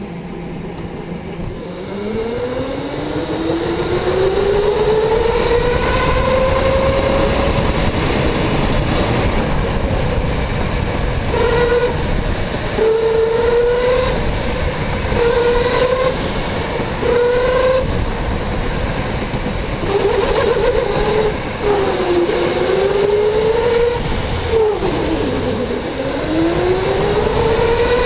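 Electric go-kart motor whining while driving, its pitch climbing steadily as it accelerates over the first several seconds. After that it drops briefly and climbs again about every two seconds as the kart slows for corners and speeds back up, with a deeper drop and long climb near the end. Steady tyre and road noise runs underneath.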